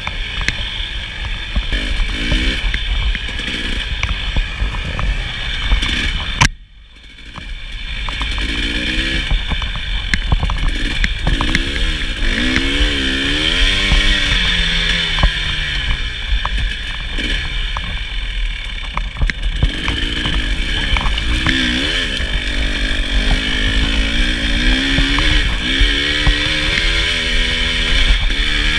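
KTM 300 XC-W two-stroke dirt bike engine revving up and down as it is ridden, with scattered knocks. About six seconds in there is a sharp crack, the engine sound drops away for a second or so, then it picks back up.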